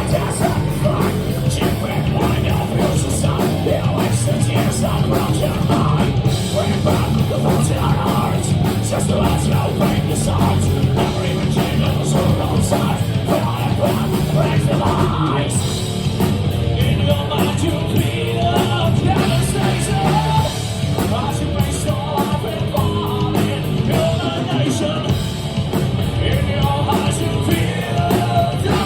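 Live thrash metal band playing loudly, with distorted guitars and fast drumming, recorded through a phone's microphone.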